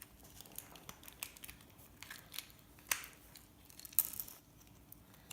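Irregular small clicks and snaps of gold-plated pins being torn out of scrap circuit boards, the sharpest snap about four seconds in.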